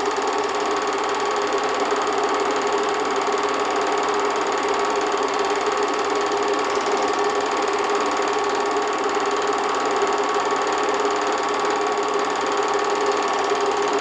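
8mm film projector running steadily: an even mechanical whirr with a constant hum.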